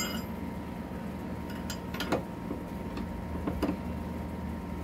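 A few scattered light metallic clicks and clinks of a wrench working the bolts on an electric bike's rear wheel, over a steady faint hum.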